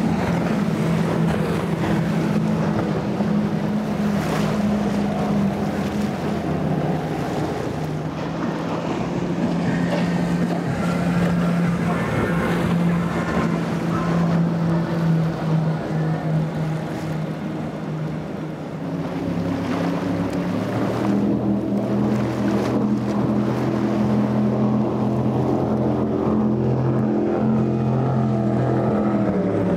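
Several powerboats in turn running at speed on open water, their engines droning steadily, with water rushing and spraying off the hulls and wind on the microphone. The engine tone and level shift about two-thirds of the way through as one boat gives way to the next.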